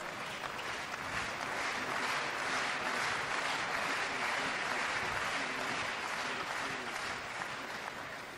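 Arena crowd applauding after a table tennis rally, swelling in the first couple of seconds and dying away near the end.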